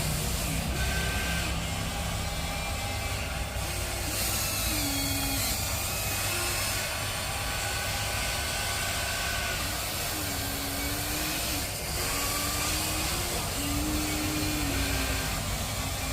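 Radio-controlled excavator working, its electric motors whining over a steady low hum, the whine stepping and gliding up and down in pitch every second or two as the machine changes movement.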